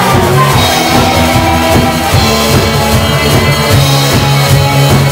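Live band playing a disco medley: a drum kit beats out a steady rhythm under held bass notes.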